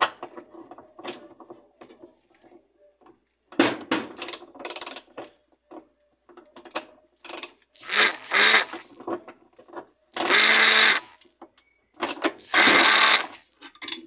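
Ratchet wrench tightening the washing machine motor's mounting bolt to tension the drive belt: bursts of rapid ratchet clicking with metal clinks in between, the longest bursts near the end.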